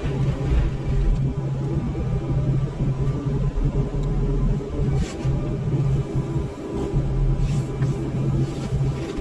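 Excavator with a forestry mulching head running: a steady low diesel drone, with a few brief sharper noises about five and seven and a half seconds in.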